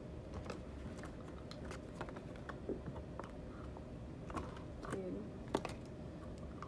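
Faint, scattered clicks and scrapes of a plastic spoon in a small plastic baby-food cup, with a cup's lid being handled and peeled back; one sharper click comes about five and a half seconds in.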